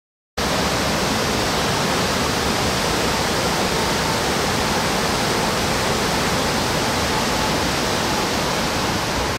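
Steady, even rush of a flooded creek's fast high water, starting abruptly about half a second in.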